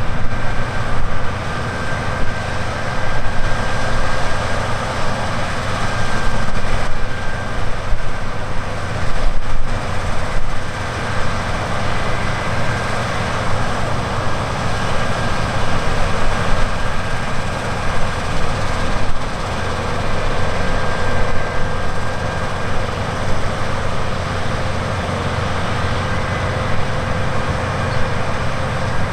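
Heavy harvest machinery running steadily in a barley field: a continuous engine drone with a low rumble and a steady high whine.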